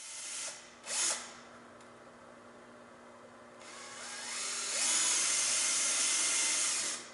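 Power drill boring pilot holes for 1-inch screws into a wooden newel post: a short burst about a second in, then the motor spins up with a rising whine around four seconds in, runs steadily for about two seconds and stops just before the end.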